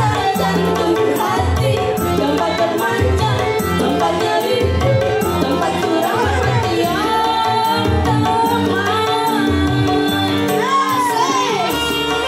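Live dangdut music amplified through a PA: women singing into microphones over a single keyboard's backing, with a steady tabla-like drum beat and bass.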